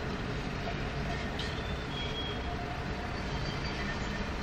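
Alstom Citadis tram of the Tours network rolling along a grassed track, a steady low rumble and hum with a faint short high tone about a second and a half in.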